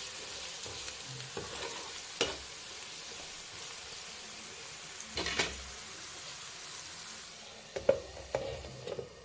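Chicken pieces sizzling in oil in a non-stick frying pan as they are stirred with a metal spatula, which scrapes and knocks against the pan now and then. Near the end a glass lid is set on the pan with a few clinks, and the sizzle turns quieter.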